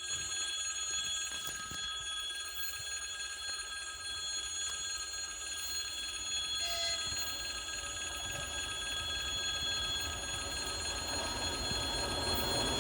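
A 2M62U diesel locomotive approaching: a low rumble that slowly grows louder, under several steady high-pitched ringing tones.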